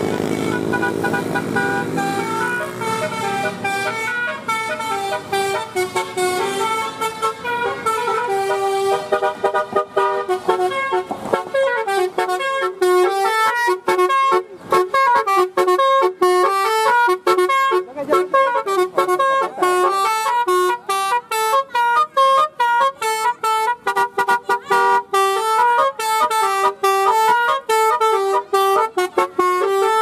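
Telolet musical horn with a DAV module playing a quick tune of short notes that step up and down, repeated over and over, growing busier from about ten seconds in.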